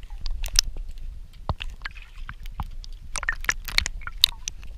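Underwater sound from a submerged camera: many irregular sharp clicks and crackles over a steady low rumble.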